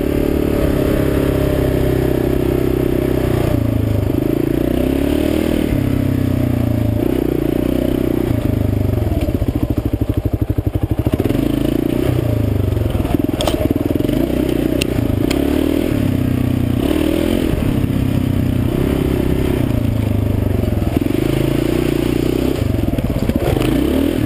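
Kawasaki KLR650's single-cylinder engine being ridden, its pitch rising and falling again and again with throttle and gear changes. About halfway through it drops to a slow, pulsing low-rev chug before picking up again, and a few sharp clicks follow shortly after.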